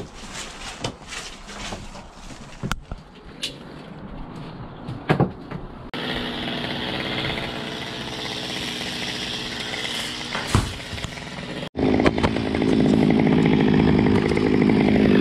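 A few light clicks and knocks, then a chainsaw running steadily from about six seconds in. After an abrupt break near the end it comes back much louder and close up.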